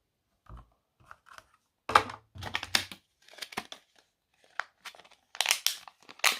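Plastic packaging crinkling and rustling with irregular clicks, as a plastic lighter storage case is unwrapped and handled.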